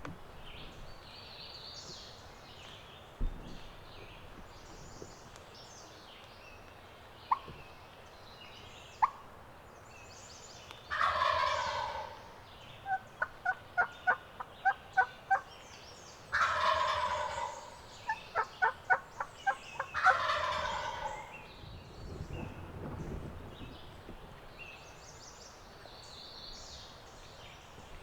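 A wild turkey gobbler gobbling loudly three times, each gobble about a second long, with runs of short, evenly spaced calling notes between the gobbles. Faint songbirds chatter in the background, and a couple of sharp snaps come earlier.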